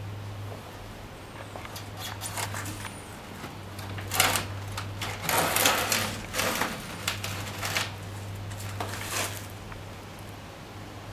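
Irregular clicks, clatters and rustles of small objects being handled, bunched in the middle and loudest there, over a steady low hum.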